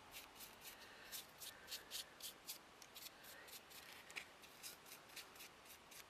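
Faint, quick strokes of a paintbrush on card, about four a second.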